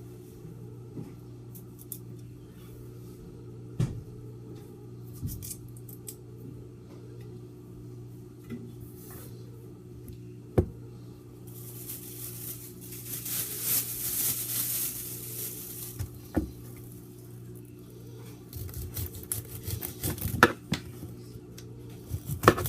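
Kitchen handling sounds: scattered knocks and clinks of dishes and utensils over a steady low hum, with a few seconds of hiss in the middle and a run of small clatters near the end.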